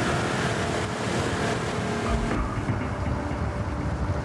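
Motorboat engine running steadily on the river, with a deeper rumble and less hiss from about two seconds in.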